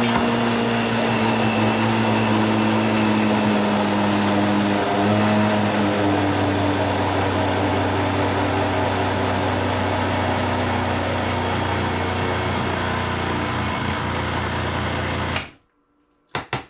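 Countertop blender motor running steadily while puréeing cooked soybeans and water into a thick paste, then cutting off suddenly near the end.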